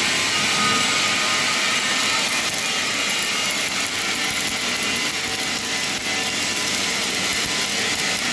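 Flux-cored MIG welding arc from a carriage-mounted torch laying a continuous fillet weld: a steady, even hiss with no pauses.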